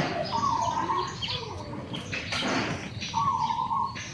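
High-pitched animal calls: two long, steady calls, one shortly after the start and one about three seconds in, with shorter chirps and a brief rustling scuffle between them.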